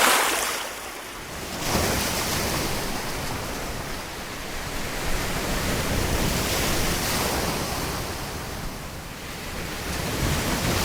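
Sea waves breaking and washing on the beach, a steady rush that swells and eases, loudest at the very start.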